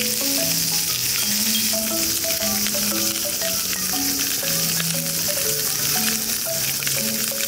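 Pork belly sizzling in its own fat on a black steel griddle plate over a gas burner: a steady, dense hiss with many small crackles. A simple background tune plays beneath it.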